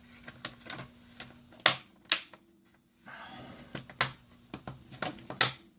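Sharp plastic clicks and knocks from a Samsung NP300E5C laptop's plastic bottom case being handled and set onto the chassis, with a brief scrape of plastic on plastic about three seconds in. The loudest clicks come close together a little under two seconds in, and again near the end.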